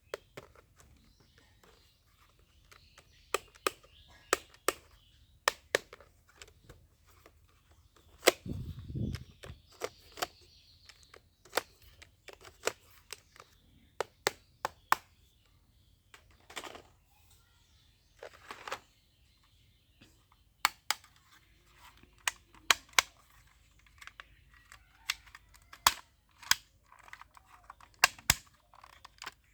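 Airsoft Glock pistol fired shot by shot, sharp pops at irregular intervals, some in quick pairs, with a duller thump about a third of the way through.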